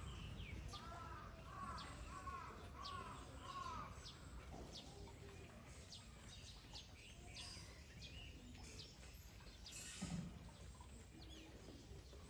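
Small birds calling over a low steady background rumble: a run of about five arched chirping notes in the first four seconds, then scattered thin high chirps. A short dull thump about ten seconds in.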